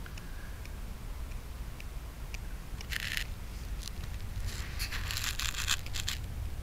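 Cat chewing and tearing at a squirrel carcass: scattered sharp clicks of bites, a short crackly tear about three seconds in, and a denser run of crackling near the end, over a low steady rumble.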